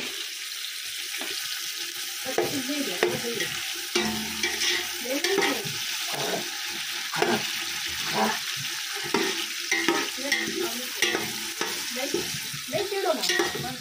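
Chopped tomatoes and green chillies sizzling in hot oil with fried onions and garlic in a steel pot, stirred with a metal spoon that scrapes and clinks against the pot again and again.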